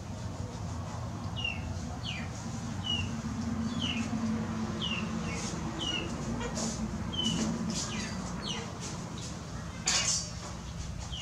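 A bird calls over and over, a short falling chirp about every three-quarters of a second, and stops after about seven seconds. Under it there are light clicks and scrapes of a knife cutting meat on a metal tray, with one louder click near the end.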